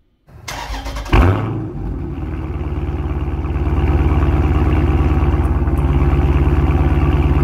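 Car engine heard at its exhaust: a brief rough start, catching with a sharp burst about a second in, then settling into a steady, evenly pulsing idle.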